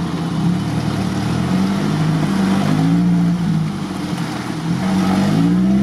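UAZ Hunter off-roader's engine revving up and down, its pitch rising and falling repeatedly, as it works its way through deep mud and water.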